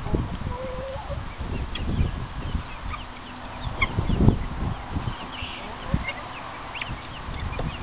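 Domestic poultry, a hen and guinea fowl, calling at the door of their house: short clucks and harsh honk-like calls, with a brief held call about half a second in. Low rumbling bumps come and go throughout and are the loudest sound.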